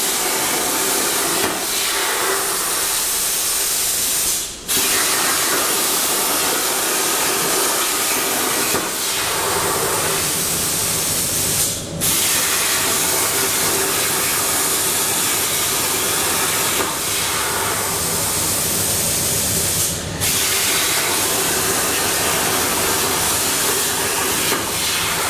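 Air plasma torch of a CNC plasma table, powered by a Hypertherm Powermax 85, cutting metal plate: a loud, steady hiss of the arc. The hiss drops out briefly three times, at about four and a half, twelve and twenty seconds in.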